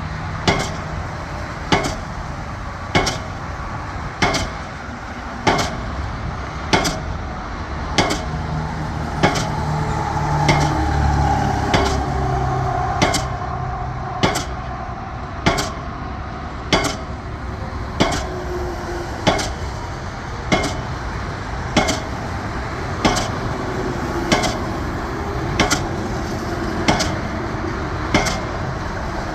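Pile hammer driving a steel H-pile: sharp metallic blows at a steady pace of about one every 1.2 seconds, over the continuous engine rumble of the piling rig, which swells for a few seconds midway.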